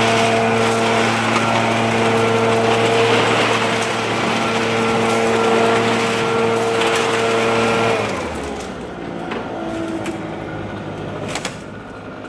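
Gas backpack leaf blower engine running steadily at one speed, then shut off about eight seconds in. A few knocks of equipment being handled follow near the end.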